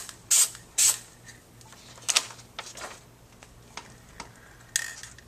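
Aerosol spray-paint can hissing in short bursts: two quick sprays in the first second, then a fainter one about two seconds in and another near the end.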